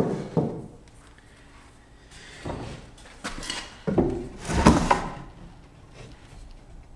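2x4 lumber being knocked and slid about on a miter saw bench: a sharp wooden knock at the start, then a few clunks and scrapes between about two and a half and five seconds in.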